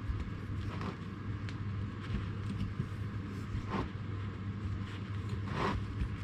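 Steady low rumble of a workshop heater, with three short squeaks and scrapes as a threading die is turned on mild steel bar: about a second in, near four seconds and near the end.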